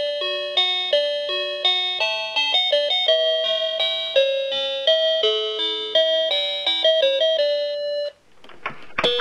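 Children's electronic learning laptop toy playing a beeping electronic tune through its small speaker, the notes changing a few times a second. The tune stops about eight seconds in, followed by a short noisy rustle near the end.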